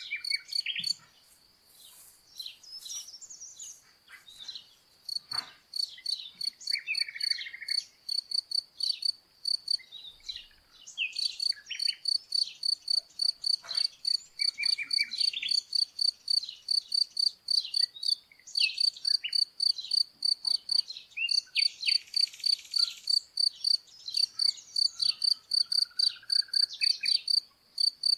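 A cricket chirping in an even rhythm, several chirps a second, under birds singing varied whistled and trilled phrases. The chirping gets steadier and louder about a third of the way in.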